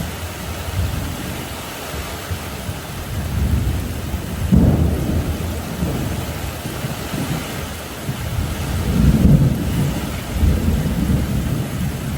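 Steady heavy rain with rolling thunder, the low rumbles swelling about four seconds in and again about nine seconds in.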